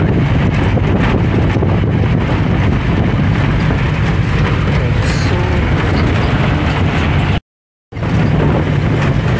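Motor vehicle engine running steadily while driving, with road and wind noise, heard from inside the cab. It cuts to silence for about half a second near the end, then resumes.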